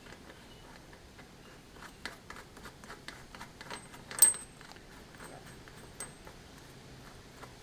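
Small metal parts clinking as they are handled: a scatter of light clicks and taps, with one sharper, ringing metallic clink about four seconds in.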